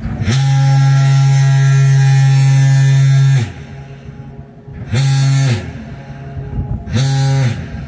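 Horn of the Great Lakes freighter American Century blowing the captain's salute: one long blast of about three seconds, then two short blasts. The horn is loud and deep, and each blast drops in pitch as it cuts off.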